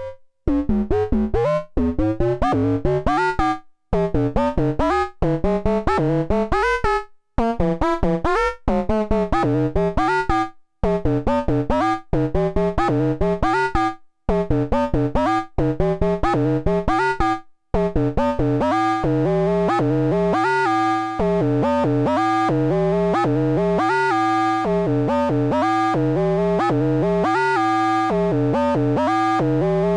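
Eowave Orage analog oscillator's triangle output playing a sequenced line of short notes, frequency-modulated by a second Orage oscillator as the FM amount is turned up, giving a bright, overtone-rich tone. Short phrases with brief gaps give way to an unbroken run of quick notes about 18 seconds in.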